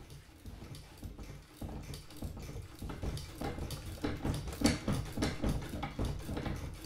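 Fast, irregular clicking and rattling from the wooden spinning-wheel mechanism of a lokkur, a langspil zither built onto a spinning wheel, over a low rumble and growing louder.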